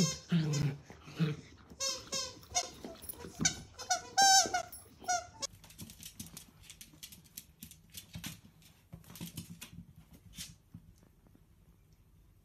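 Dachshund puppy chewing a squeaky toy: a quick run of high squeaks, with a low growl near the start. After about five and a half seconds, light scattered clicks and taps of a puppy's claws and toy on a tile floor, fading out.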